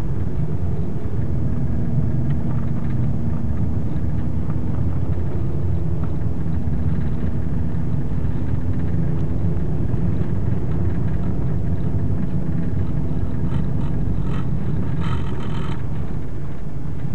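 Steady engine drone and road rumble of a car being driven along a snowy road, heard from inside the cabin. There are a few clicks near the end.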